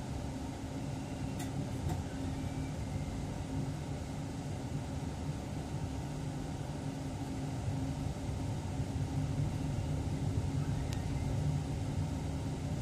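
Train running, heard from inside the driver's cab: a steady low rumble with a constant hum, growing a little louder in the second half, with a few faint ticks.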